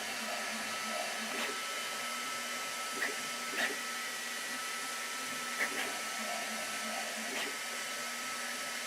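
Sovol SV08 3D printer running a print: a steady fan hiss with a faint constant whine, broken by short chirps from the moving print head, about six in all, spaced a second or two apart.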